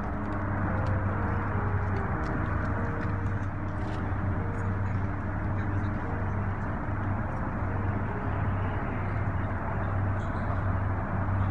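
Steady low rumble of outdoor background noise with a constant low hum, even throughout.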